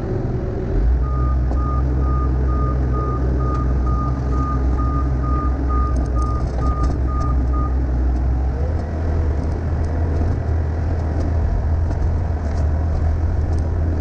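Skid steer engine running as the machine backs off a trailer, its backup alarm beeping about twice a second. The beeping stops about halfway through, and shortly after that the engine note shifts as the machine turns.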